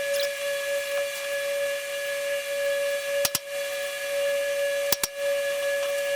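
Power drill running at a steady high whine with a hiss, broken by a few short clicks and brief dips, while drilling holes in the truck's sheet metal.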